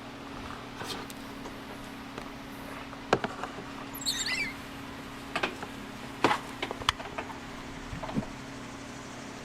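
Hot stapler plastic repair tool humming steadily while a heated wire staple is set against a plastic bumper cover, with a few sharp clicks and one short high squeak near the middle.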